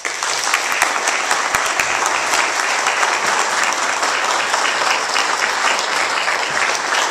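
A church audience applauding: many hands clapping together, breaking out all at once and holding steady as an ovation for a performance.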